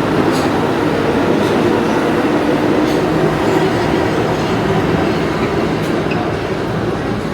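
New York City subway train running through the station: a loud, steady rumble with faint clicks of the wheels on the rails, easing slightly near the end.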